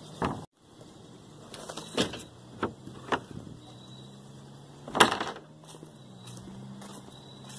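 Rummaging in a dumpster: a run of knocks and rustles from trash bags and cardboard being handled, the loudest about five seconds in, over a steady low hum.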